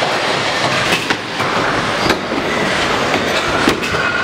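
Stunt scooter wheels rolling over a skatepark ramp, a steady rumble broken by a few sharp clacks of the scooter hitting the surface.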